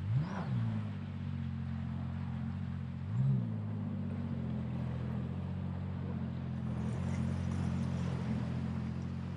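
The 250 hp jet boat engine runs at low throttle, holding the boat against the current, and twice briefly revs up and drops back: once near the start and again about three seconds in. River rapids rush underneath.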